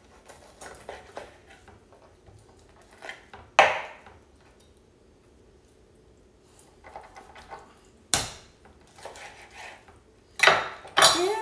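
Chef's knife cutting through a raw chicken breast on a plastic cutting board: scattered light scrapes and clicks of the blade, with sharp knocks of the knife on the board about three and a half and eight seconds in and a louder clatter near the end.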